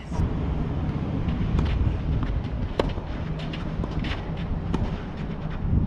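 Wind buffeting the microphone in a steady low rumble, with tennis balls struck by rackets a handful of times during a rally, the sharpest hit about three seconds in.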